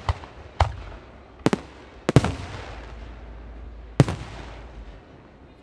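Aerial firework shells bursting in a display: about five sharp bangs, two of them close together a little after two seconds, followed by a hiss that fades over the next couple of seconds. A low rumble runs underneath.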